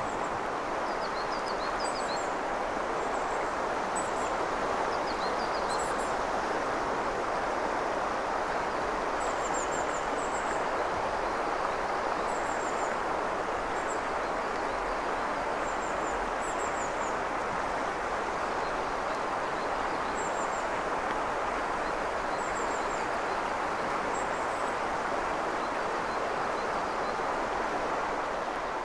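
Shallow mountain river flowing steadily over stones, a constant rushing hiss, with small birds giving short, high chirps every second or two that thin out near the end.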